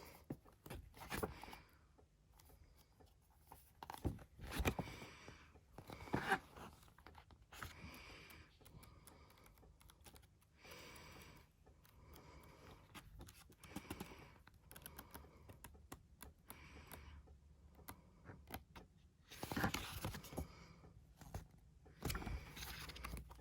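Pages of a glossy album photo book being turned and handled: short paper rustles and flips every few seconds, with a longer bout of rustling near the end.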